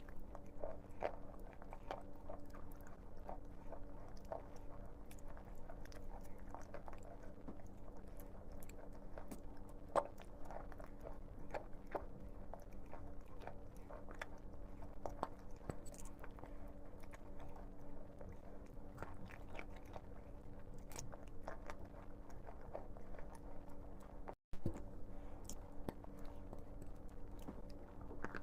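Someone biting and chewing chalk close to the microphone: a long run of short, dry, irregular crunches over a faint steady hum, with a brief cut-out in the audio about four seconds before the end.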